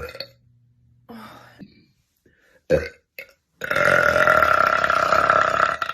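A woman burping: a short, sharp burp a little under three seconds in, then one long belch of about two seconds held at a steady pitch that stops abruptly.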